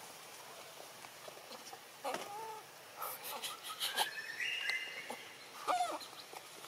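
Monkeys calling: a few short, arching cries, with a cluster of clicks and rustles in between.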